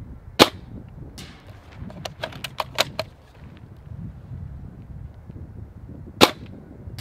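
Bolt-action spring airsoft sniper rifle, a DIY-built SSG96, fired twice: two sharp snaps about six seconds apart. Between them comes a rattle and a quick run of clicks as the bolt is worked to recock it.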